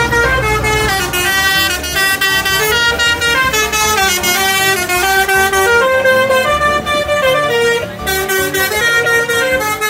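A loud tune in quick stepped notes with a brassy, horn-like tone, stopping suddenly soon after.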